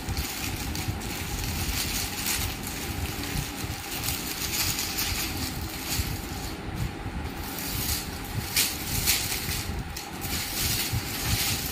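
Rustling and crinkling of folded sarees and their packaging being handled and set aside, in irregular crackly bursts.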